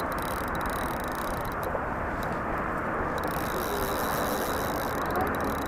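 Steady outdoor background rumble, even and without distinct events, with a faint thin high tone throughout.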